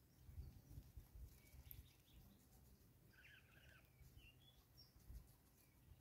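Near silence with faint, scattered short bird chirps and a brief burst of twittering about three seconds in, over a few soft low thumps.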